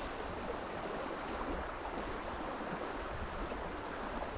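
Steady rush of a creek's flowing water, an even hiss with no distinct events.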